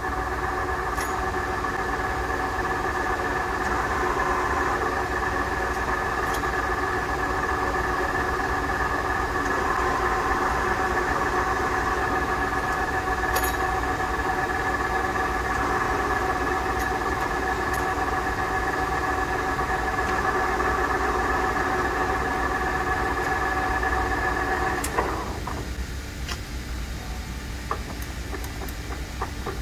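Vanguard CA6250C engine lathe running with its spindle and chuck turning: a steady mechanical whine made of several held tones from the geared headstock. It stops suddenly near the end.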